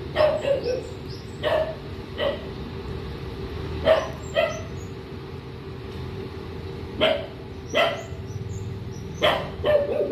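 A dog barking repeatedly: short sharp barks, often two in quick succession, with pauses of a few seconds between groups. A steady low rumble runs underneath.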